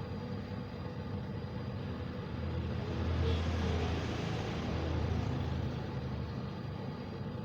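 Steady low rumble with a hiss above it, growing louder about a third of the way in and easing off again after the middle.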